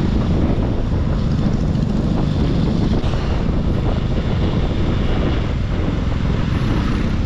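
Wind rushing and buffeting over the microphone of a moving motorcycle, steady and loud throughout.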